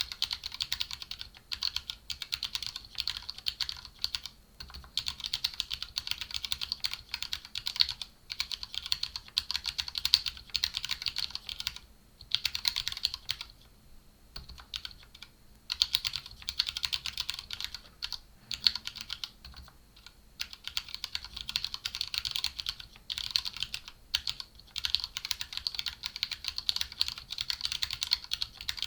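Fast continuous typing on a mechanical keyboard with linear Cherry Red switches and Cherry-profile PBT keycaps, in a foam-dampened tray-mount polycarbonate case, giving a dense run of soft clacks with brief pauses between bursts.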